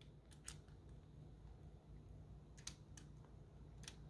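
Near silence with a few faint, sharp clicks of a small metal nut and screw being handled and fitted against a clear acrylic robot chassis.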